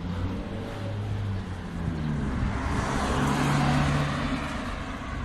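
Road traffic: a car passing by, its engine hum and tyre noise swelling to a peak about three to four seconds in and then fading.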